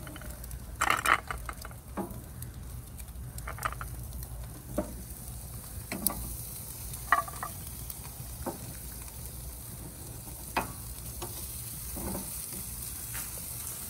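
Oyster shells set down one at a time on a hot charcoal grill grate, each landing with a sharp click or knock against the metal, about a second or two apart, over a steady sizzling hiss from the grill.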